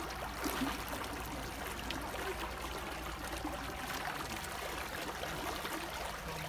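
Water rushing and splashing along the side of a moving boat, with a steady low rumble underneath.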